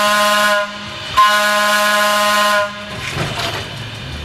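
Horn of Pacific Electric interurban car 418 sounding two long blasts: the first cuts off about half a second in, the second starts about a second in and lasts about a second and a half. After that, the quieter low rumble of the car rolling on the rails.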